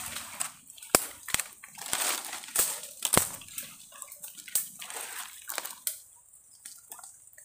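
Leaves and branches rustling, with scattered sharp knocks and scrapes, as someone climbs a tree gripping the trunk. The knocks come mostly in the first half, and the rustling dies down near the end.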